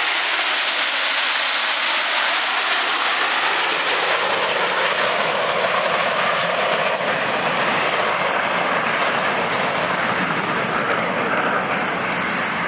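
Snowbirds CT-114 Tutor jets flying a formation pass with a fighter jet in their midst: steady jet engine noise, easing off a little near the end.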